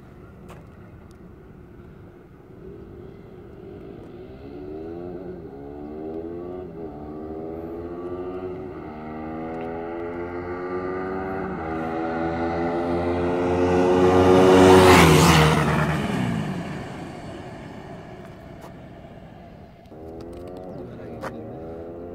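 KTM RC 390's single-cylinder engine through its stock exhaust, accelerating up through the gears as the bike approaches. It passes close by about 15 seconds in, loudest there with a drop in pitch, then fades away. Another run of revving starts near the end.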